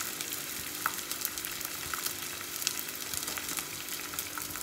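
Gond (edible gum) frying in hot ghee in a steel kadhai: a steady sizzle with scattered crackles as the pieces puff up.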